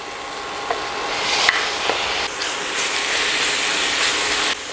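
Curry-seasoned raw chicken pieces sizzling as they are scraped into a hot stainless pot of butter, onions and toasted curry powder. The sizzle grows louder over the first second or so, with a few light clicks of the spoon against the bowl and pan.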